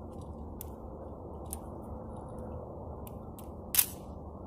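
A few short, sharp clicks and clacks of a rifle being handled as the shooter settles in behind it, the loudest a single clack near the end, over steady low background noise.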